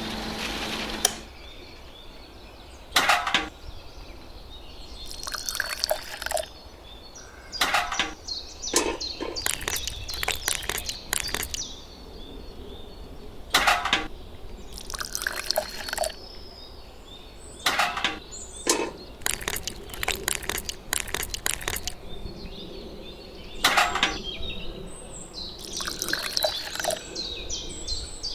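Wet cement mortar being worked by hand: short, irregular scrapes and taps come every second or two.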